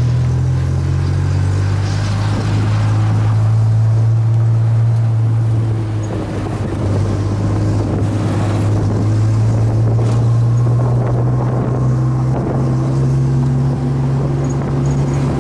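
Tuk tuk's small engine running steadily under way, a continuous low drone heard from inside the open passenger cabin, mixed with road noise.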